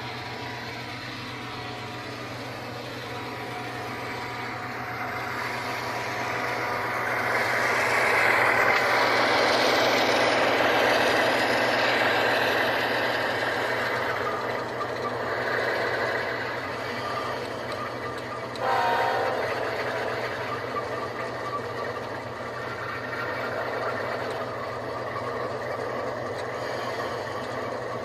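ESU LokSound decoder in an HO-scale ES44AC model playing GE diesel locomotive sounds through its two small speakers, over a steady low hum. The engine sound builds to a louder peak about a third of the way in, then settles back. A sudden short sound cuts in about two-thirds of the way through.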